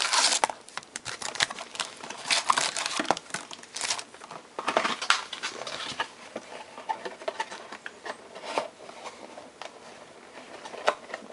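Foil wrappers of Panini Prestige football card packs crinkling and rustling in irregular bursts as the packs are pulled out of the box and stacked, the loudest right at the start.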